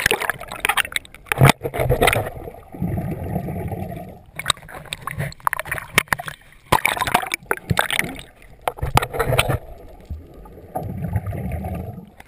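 Sea water sloshing and splashing against a waterproof action camera as it bobs in and out of the surface, alternating with a muffled low underwater rumble each time it goes under. A swimmer's kicks churn up bubbles close to it near the end.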